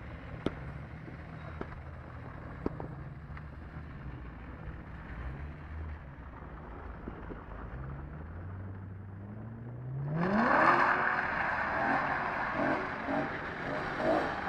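BMW M3 engine running at low revs, then revving up with a rising pitch about eight seconds in. About ten seconds in it turns suddenly loud as the car is driven hard into a drift, the engine at high revs and the tyres starting to skid.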